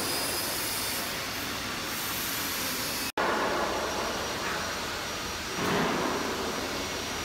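Machinery running steadily: an even rushing noise with a thin high-pitched whine. It drops out for an instant about three seconds in.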